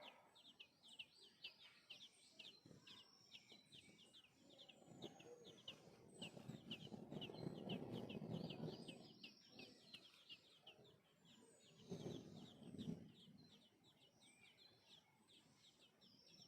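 Nestling birds begging: a fast, continuous string of thin, high chirps, about five a second, kept up throughout. A low rumble of noise swells from about five to nine seconds in and again briefly near twelve seconds.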